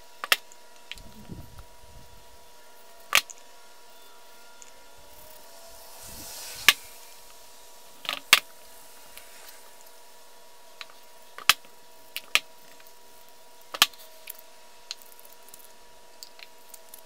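Steel vise parts handled and set against each other on a cloth-covered bench: about ten sharp metal clicks and knocks spread irregularly, one every second or two, with a short rustling hiss building just before one of them, over a faint steady hum.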